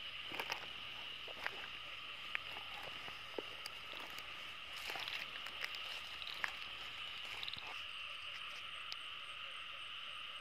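Grass and brush rustling and snapping underfoot over a steady, high-pitched night chorus of calling frogs and insects; the rustling stops about eight seconds in.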